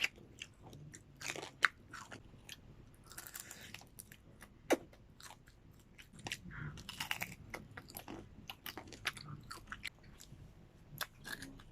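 Close-up crunching and chewing of crispy oven-grilled pork skin with rice: irregular sharp crunches and wet chewing.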